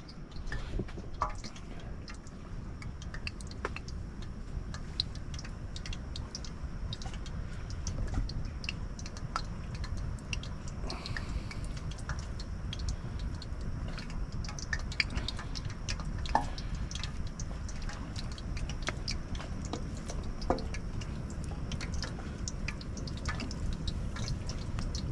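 Floured jundiá (catfish) pieces frying in hot oil: a steady sizzle with many irregular small pops and spits.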